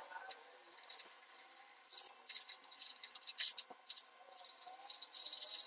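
Steel bolts and clamp plates clinking and rattling as they are handled and fitted together on a steel welding table: scattered sharp metallic clinks with light scraping between, busiest near the end.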